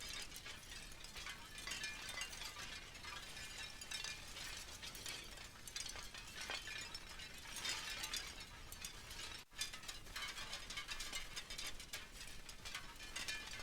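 Wind chimes jangling continuously as the wind knocks them into each other, in many quick, overlapping clinks with a brief break about nine and a half seconds in.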